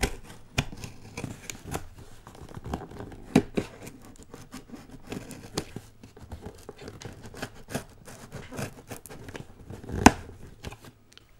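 Fingers tapping and fingernails scratching on the top of a cardboard shipping box: irregular light taps and scrapes, with one sharper knock near the end.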